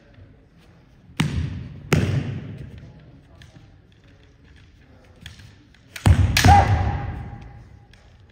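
Two quick pairs of sharp cracks from a kendo exchange, bamboo shinai strikes and stamping feet, about a second in and again about six seconds in, each ringing on in the sports hall's echo. A short shout comes with the second pair.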